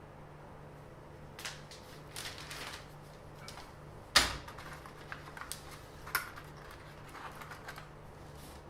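Small objects being handled at close range: a few scrapes and light clicks, with one sharp knock about four seconds in.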